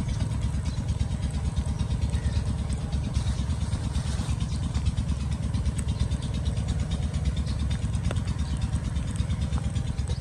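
Egg batter sizzling faintly in hot ghee on an iron tawa, under a louder steady low rumble with a fast even pulse, like a motor running nearby.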